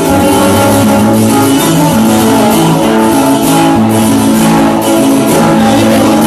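Loud instrumental band music led by plucked and strummed guitars over a bass line, without singing.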